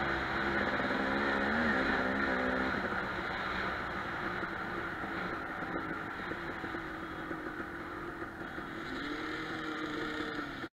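Dirt bike engine under way, heard from the rider's camera with wind rushing over the microphone. The engine pitch wavers up and down in the first two seconds, settles into a steady run, and rises again near the end before the sound cuts off abruptly.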